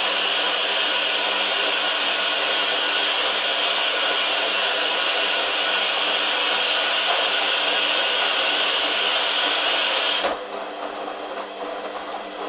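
Hoover washing machine running with a steady, loud rushing noise and a faint hum, which cuts off abruptly about ten seconds in, leaving a quieter sound with light ticking.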